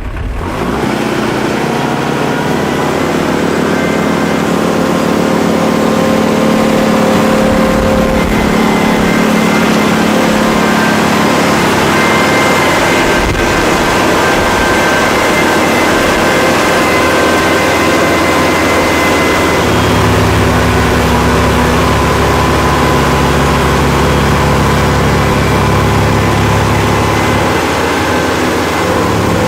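Kubota L5740 tractor's diesel engine running steadily. About two-thirds of the way through, its low note gets stronger and its pitch shifts.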